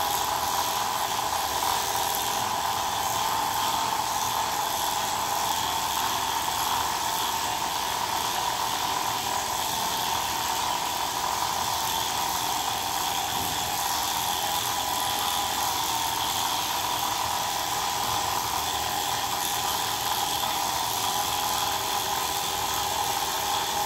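Corded electric pet clippers running with a steady buzz, shaving through a Persian cat's long fur.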